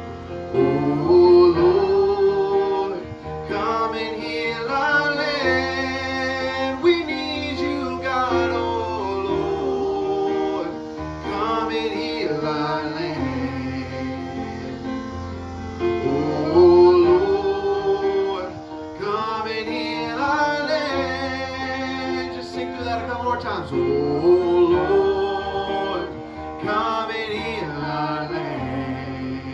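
Live worship music: singers with guitar and other instruments accompanying them.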